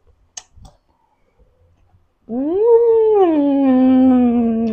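A woman's long, wordless vocal wail, her reaction to an intensely sour bite of ambarella (cóc). It comes in about two seconds in, rises in pitch, falls, then holds steady, after a few faint chewing clicks.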